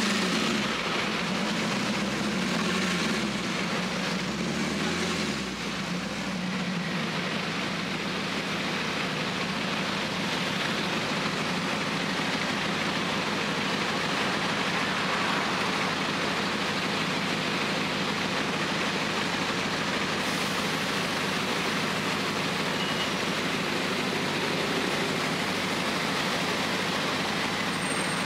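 Car engines idling in a line of slow street traffic. In the first six seconds a low engine note rises and falls a few times, then it settles into a steady hum under even traffic noise.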